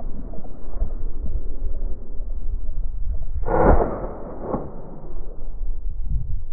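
A shotgun shot about three and a half seconds in, followed about a second later by a fainter second bang, over steady wind rumble on the microphone.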